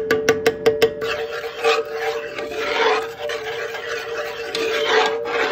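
A spoon stirring gravy in a pot to dissolve bouillon cubes: quick clinks against the pot in the first second, then uneven scraping and sloshing. A steady hum runs underneath.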